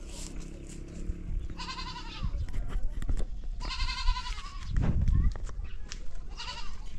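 A farm animal bleating three times in high, quavering calls about two seconds apart, the last one short. A dull low thud comes between the second and third calls.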